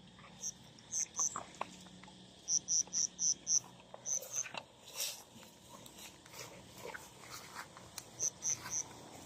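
A cricket chirping in short runs of high pulses, about four a second, with a few scattered soft knocks and rustles.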